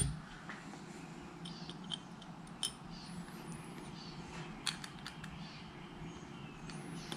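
Small metal ticks and clicks of a screw and a thin hand tool being fitted at an ATV thumb-throttle housing cap, a few scattered sharp taps over a faint steady hum.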